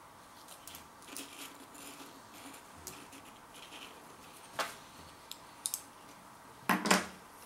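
Faint crunching of a puffed corn cheese curl being bitten and chewed, then a few sharp clicks and a louder short noise near the end.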